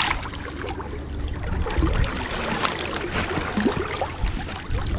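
River water flowing and splashing in the shallows as a hooked fish is brought in and handled, over a low rumble.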